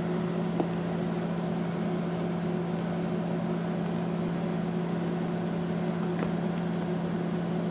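A steady low electrical or fan hum over an even hiss, with a couple of faint light ticks from handling.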